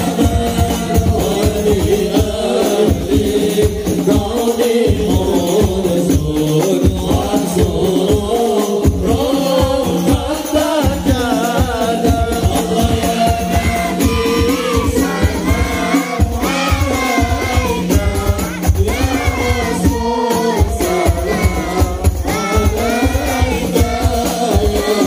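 A standing congregation singing a shalawat devotional chant together, over a fast, steady beat of hand drums with jingles.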